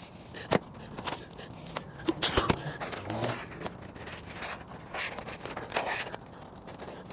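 Scattered knocks, clicks and scrapes, with a sharp knock about half a second in and a cluster of louder ones around two seconds in.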